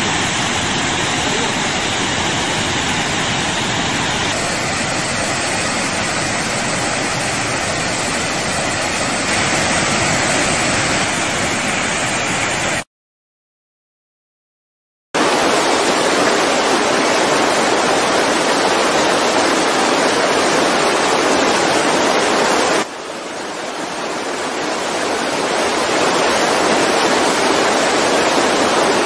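Floodwater rushing at full force out of a dam's spillway gates: a loud, steady rush with no pitch or rhythm. It cuts out completely for about two seconds partway through. Then the churning whitewater rushes again, dipping in level and building back up near the end.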